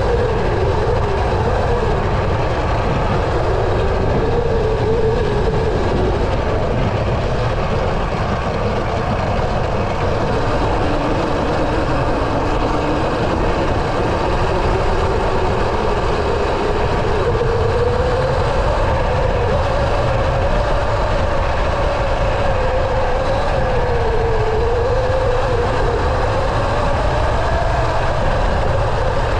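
Segway X260 electric dirt bike's motor whining as it rides, the whine sliding down and back up in pitch as the bike slows and speeds up, over a steady low rumble.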